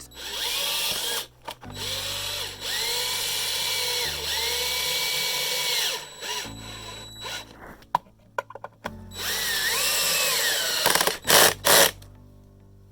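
Power drill driving screws into a wooden 2x4 block. There are several runs of a few seconds each, with a quiet gap in the middle and short bursts near the end. The motor whine climbs as the trigger is squeezed and drops as it is released. Background music plays underneath.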